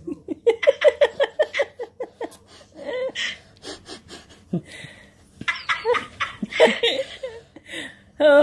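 High-pitched laughter: a quick run of short laughing pulses, then a second spell of laughing about five and a half seconds in.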